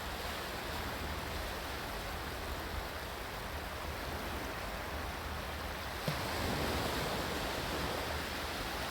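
Steady rushing water; a small knock about six seconds in, after which the water grows a little louder.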